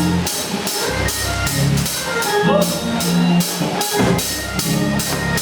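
Church band music: a steady drum beat, about two strokes a second, over held low notes.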